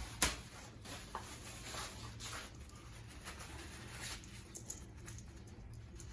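Cloth wiping and rubbing the crankshaft's drive-side journal clean with solvent, degreasing it oil free for bearing retaining compound: a run of soft, irregular wiping strokes, with a sharp click just after the start.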